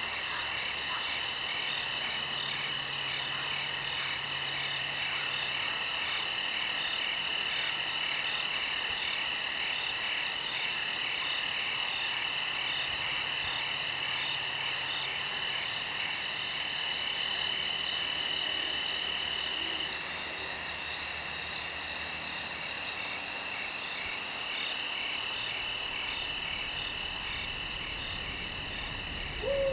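Night insect chorus: several crickets or similar insects trilling steadily in overlapping high-pitched voices, one of them pausing for a few seconds about two-thirds of the way through.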